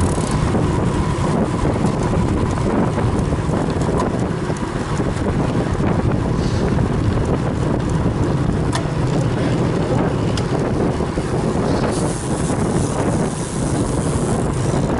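Steady wind buffeting the microphone of a camera on a moving road bicycle, over the rumble of riding on asphalt.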